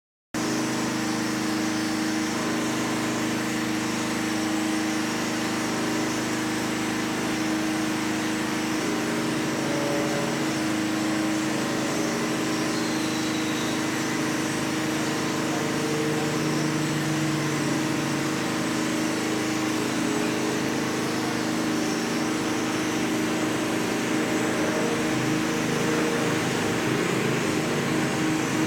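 A motor running steadily: an even hum with several held low tones over a faint hiss.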